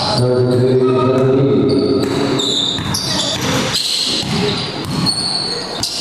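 Basketball game in play: the ball bouncing on the court and shoes squeaking at intervals, with a voice calling out over the first couple of seconds.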